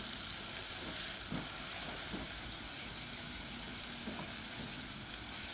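Dry lentils, chopped onion and garlic sizzling in olive oil in a pan as they sauté, with a steady frying hiss and a few soft scrapes of a spatula stirring them.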